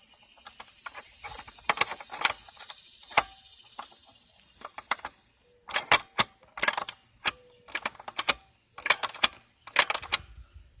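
A metal screwdriver scraping and clicking against the hood-release catch behind a 1998 VW Beetle's latch plate, probing for the release. It starts as a few scrapes and clicks and becomes a quick run of sharp clicks and knocks in the second half.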